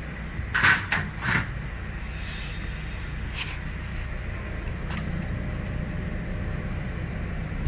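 Three sharp knocks in quick succession about a second in, then a short swish and one lighter knock, over a steady low hum.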